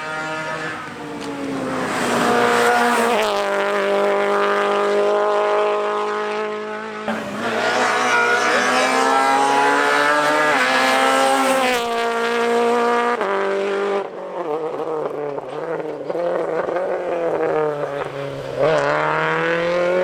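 Toyota GT86 rally car's FA20 flat-four engine driven hard on a tarmac stage. The revs climb, then drop sharply several times with gear changes and lifts into corners.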